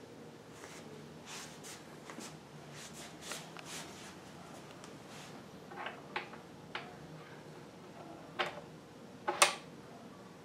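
Light scraping and rustling as small aluminium V-belt pulleys are handled, then five short, sharp clicks and knocks as the smallest pulley is set on the sewing machine motor's shaft, the loudest near the end.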